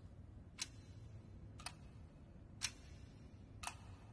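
A clock ticking faintly and evenly, one tick a second, four ticks in all.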